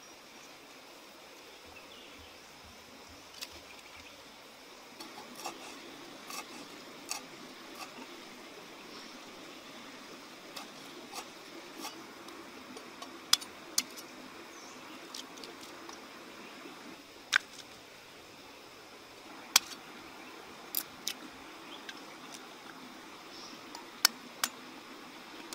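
Hands handling food and a metal wok: a faint steady background with scattered light clicks, then about five sharp, louder taps from about halfway on.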